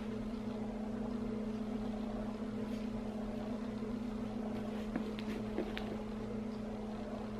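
Steady low motor hum from a baby's Rock 'n Play rocking sleeper, with a few faint clicks as a leather tote is handled.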